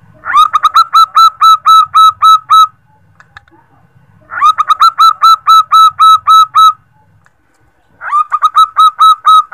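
Female zebra dove (perkutut) calling to males: three quick runs of short, clipped cooing notes, about five a second, each run lasting roughly two seconds, with short pauses between runs.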